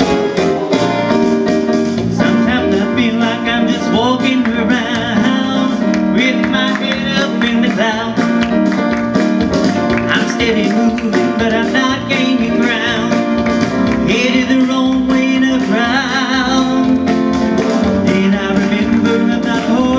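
Gospel song: a man singing into a microphone, his voice wavering with vibrato, over electric keyboard accompaniment with a steady beat.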